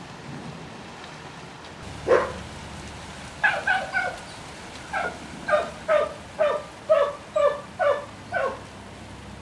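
An animal's short, pitched calls: one at about two seconds in, three in quick succession a little later, then about eight more at roughly two a second, each dropping slightly in pitch, over a faint steady hiss.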